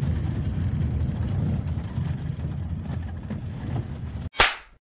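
Car interior road noise: a steady low rumble of the engine and tyres on a rough, broken asphalt road. Near the end it cuts off abruptly and a brief, loud burst of noise follows.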